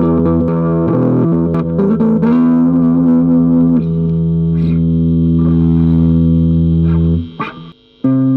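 Electric guitar, a Fender Stratocaster played with the fingers, through a Hotone Pulze Mini amp. A few quick note changes lead into one long ringing chord that sustains for about five seconds. Near the end the chord is cut off, and playing starts again after a short silence.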